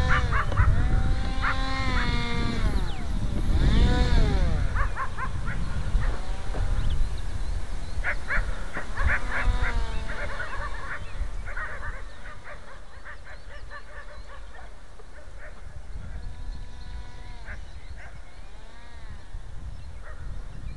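Electric motor and propeller of an RC powered parachute, its whine rising and falling in pitch with throttle and passes, loud for the first dozen seconds and then fainter as the model flies farther off. A low wind rumble on the microphone runs underneath.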